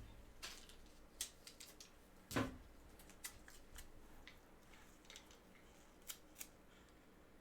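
Trading cards and plastic card holders being handled: scattered light clicks and ticks, with one louder knock about two and a half seconds in.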